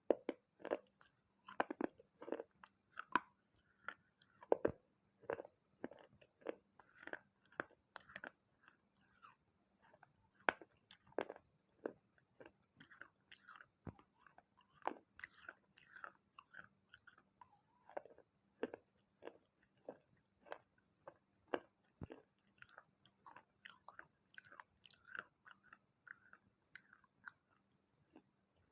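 Person biting and chewing pieces of a small unglazed clay pot and saucer that have held water, in short, sharp, irregular crunches several times a second.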